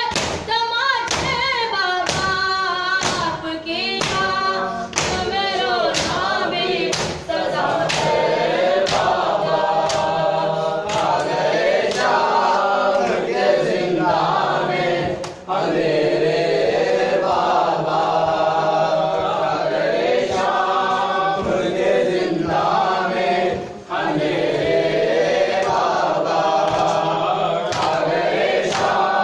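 A group of men chanting a noha in chorus, kept in time by matam: sharp slaps of hands on chests, about two a second at first and sparser after the first ten seconds.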